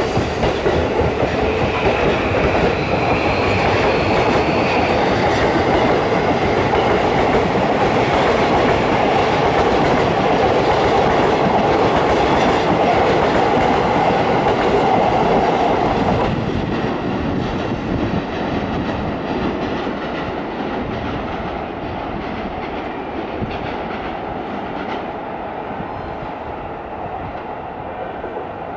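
Electric commuter train pulling out of the station and accelerating away, wheels clattering on the rails, with a faint rising motor whine in the first few seconds. The noise drops about sixteen seconds in and fades to a lower rumble as the train leaves.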